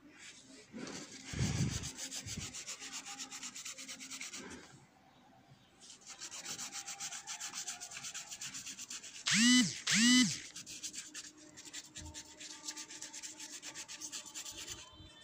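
Paintbrush scrubbing back and forth on sketchbook paper in quick rubbing strokes, laying on watercolour, with a pause of a second or so between two spells. Just past the middle, two short pitched sounds, each rising then falling, come out louder than the brushing.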